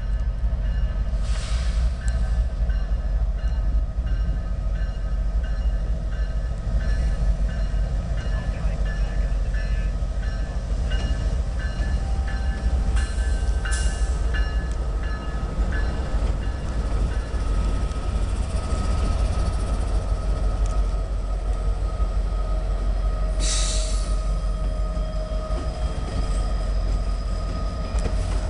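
Train rolling past close by: a steady heavy rumble with thin ringing tones over it. A light regular ticking, about two a second, runs through the first half, and there are three short hissing bursts.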